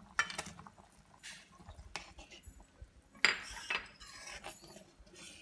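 Steel ladle and serving bowl clinking and scraping against a steel kadai as raw mango pieces are tipped into the curry and stirred: a few sharp, separate clinks, the loudest a little past halfway.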